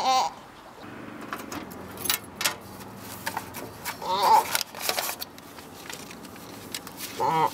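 Sheep-like bleats with a quavering pitch, three times: at the start, about four seconds in, and near the end. Between them come light metallic clicks and rattles as a letterbox's small door is worked open.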